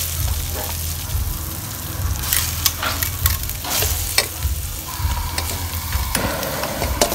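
Minced pork sizzling as it is stir-fried with garlic and chillies in a steel wok, the metal spatula scraping and clinking against the wok at an irregular rate.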